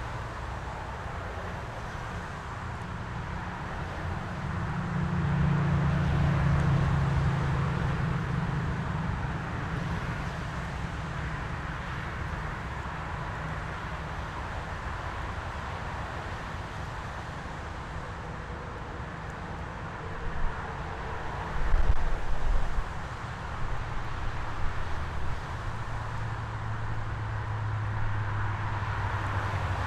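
Portable sawmill's engine running steadily. It swells louder about five seconds in, a few sharp knocks come around twenty seconds in, and it settles to a lower hum near the end.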